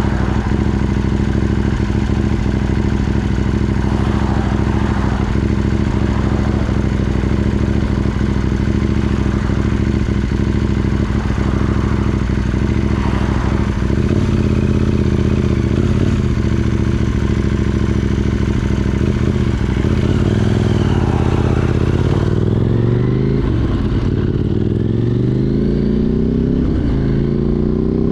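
KTM 790 Duke's parallel-twin engine through an Arrow Race Tech exhaust with de-cat pipe, running at a steady pitch while riding. Near the end it accelerates in repeated rising sweeps, the pitch dropping back at each upshift and climbing again.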